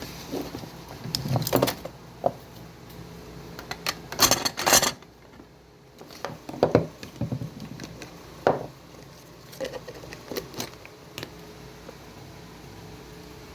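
Scattered clicks, knocks and light clatter of things being handled, with a louder rattling burst about four seconds in.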